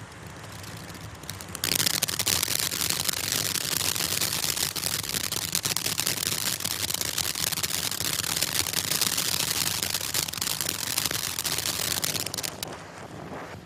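Black Cat Tropical Thunder firework fountain spraying with a steady hiss. About two seconds in, a loud, dense crackling of many rapid pops sets in and runs for about ten seconds before it falls back to the hissing spray near the end.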